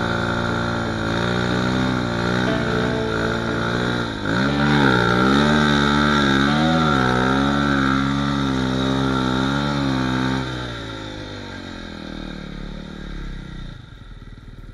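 Snowmobile engine under throttle through deep snow. Its pitch dips and climbs again about four seconds in and holds high, then the throttle comes off near ten seconds and the engine winds down to a much quieter low speed.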